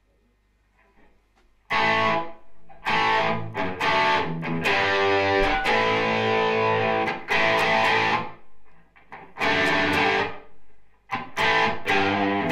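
Heavily overdriven electric guitar, an ESP LTD EC-1000, played loud through a guitar amp. Chunky riffed chords start about two seconds in and stop short several times between phrases.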